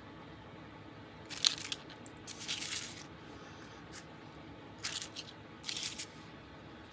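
Crinkly brown kraft packing paper rustling and crackling in several short bursts as hands press and smooth it against a craft mat.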